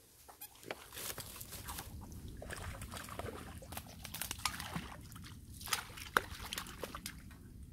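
Hooked crucian carp splashing at the water's surface as it is played in on a long pole rod, mixed with irregular rustling and crackling of dry reeds and clothing.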